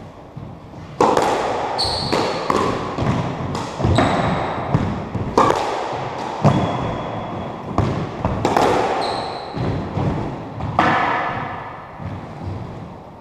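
A squash rally: the ball cracks off rackets and the court walls about a dozen times, roughly once a second, each hit ringing in the enclosed court, with short high squeaks of sneakers on the wooden floor between hits. The hits thin out near the end as the rally stops.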